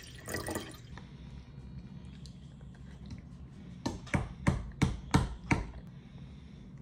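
Juice pouring into a stainless steel tumbler for a moment at the start. From about four seconds in, a quick run of six sharp clicks: a fork knocking against a dish while eating.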